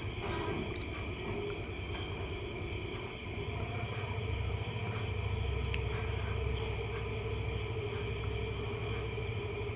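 Garlic, ginger, green chillies and curry leaves sizzling gently in hot oil in an aluminium kadai, with a metal spoon stirring them now and then. A faint, rapid high-pitched chirping runs steadily underneath.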